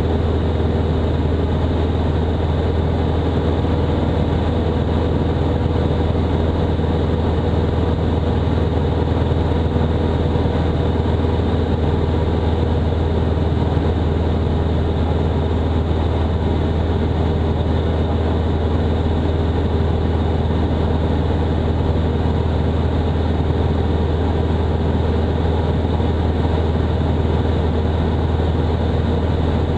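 The Robin DR400-180's 180 hp Lycoming four-cylinder engine and propeller running steadily at cruise power, heard inside the cabin: a constant low drone with no change in pitch.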